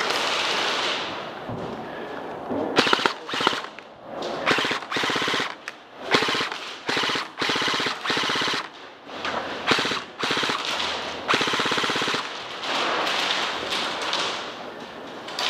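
Airsoft electric guns firing full-auto in a string of short bursts, each under a second long, with brief pauses between them.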